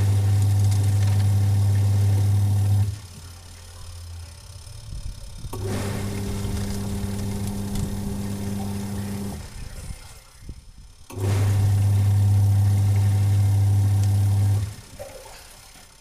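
Sharp washing machine's electric motor humming steadily as it drives the drum pulley through a rubber belt, running three times for about three seconds each with short pauses between. The belt has gone slack, which the owner says makes the drum turn sluggishly.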